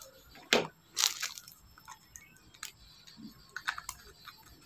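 Hands handling an SJCam action-camera battery and a piece of clear plastic wrap: a few short, sharp clicks and crinkles, the loudest about half a second and about a second in.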